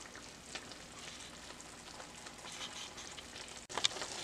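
Zucchini, bell peppers and onions sizzling in oil in a wok, a steady hiss with scattered small crackles. Near the end there is a brief break, then the sizzle comes back a little louder with one sharp pop.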